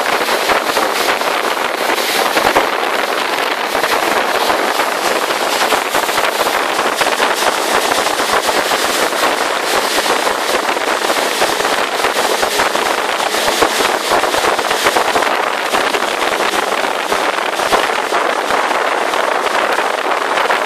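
Jet ski under way on open water: a steady rushing, crackling noise of wind buffeting the microphone over the craft's engine and water spray.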